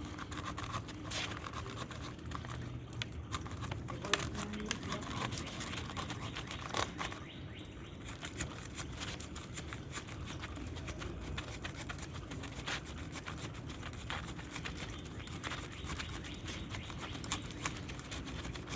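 A dense string of small clicks and scrapes as a used spin-on oil filter is cut open by hand to inspect it.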